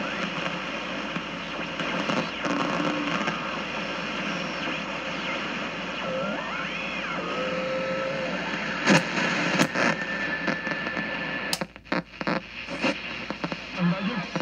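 Hallicrafters S-40-B shortwave receiver hissing with static as it is tuned across the 20-meter ham band. Whistling heterodyne tones slide up and down in pitch through the noise. In the second half come a few sharp clicks and crackles, and the hiss dips out briefly.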